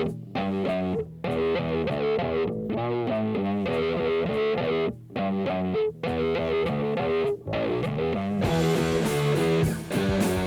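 Guitar-led music played from a CD through a Sansui TR-707A all-transistor receiver, with a few brief breaks in the music.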